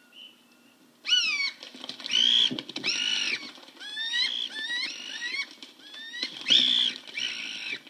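Handmade ancient-style wind instruments imitating animal calls: starting about a second in, a falling swoop, then a run of arched, held calls alternating with short upward-sliding chirps.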